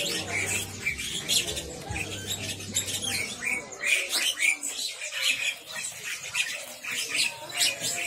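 Many caged songbirds of mixed species chirping and calling at once in a dense, overlapping chatter, with a low steady hum underneath for the first three seconds.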